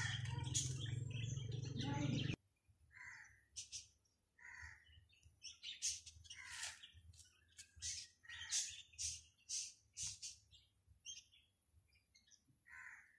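Birds chirping, a scatter of short, separate calls, after a steady background noise that cuts off suddenly about two seconds in.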